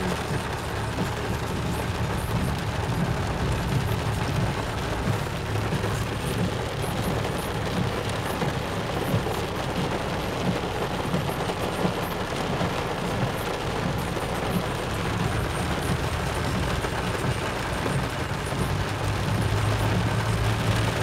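Car driving on a wet dirt road in the rain, heard from inside the cabin: a steady low engine and tyre hum under the hiss of rain and wet road, the hum rising a little near the end.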